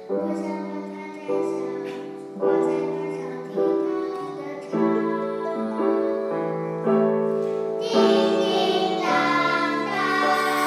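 A young girl singing a slow children's song solo over a small band's accompaniment, with chords struck about once a second. About eight seconds in, more children's voices join and the sound grows fuller.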